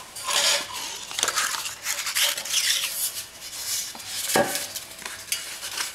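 Cardboard strip sliding and rubbing against an aluminum tube as it is wrapped around it, with irregular scratchy handling noise and a single knock about four and a half seconds in.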